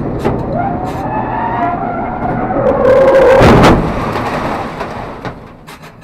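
Onboard a race truck: the engine pitch rises, then a loud rush of noise about three seconds in as the truck runs off into the gravel trap in a cloud of dust. The noise dies away to scattered clicks near the end.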